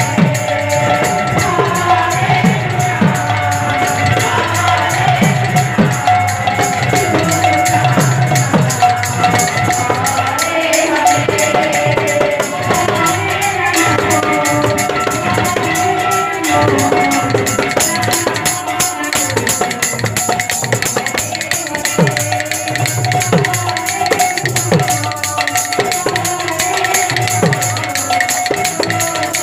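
Live kirtan music: fast, even metallic jingling percussion over deep hand-drum strokes that bend in pitch, with a long held melodic tone.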